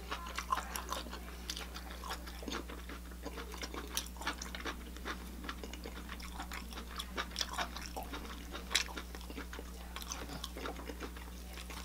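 Eating sounds: chewing and scattered small clicks and scrapes of a metal fork on a plate while pulling meat off an air-fried chicken drumstick.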